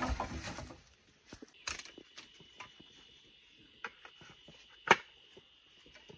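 Scattered sharp clicks and knocks, the loudest about five seconds in, over a faint steady high-pitched whine.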